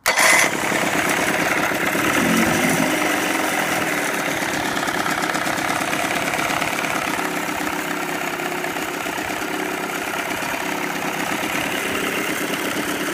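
1992 Johnson two-stroke outboard motor starting at once on its electric starter and running at a steady idle, with a brief dip in speed about two seconds in.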